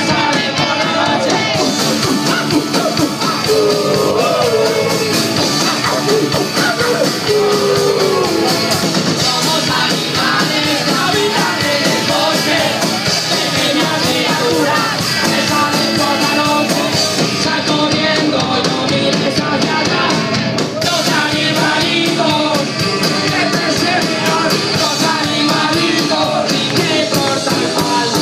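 A rock-style song with a voice singing over a band, playing steadily and loudly.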